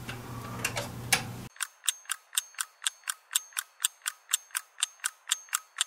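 Regular mechanical ticking, about five sharp clicks a second, starting about one and a half seconds in. Before it there are a couple of faint clicks.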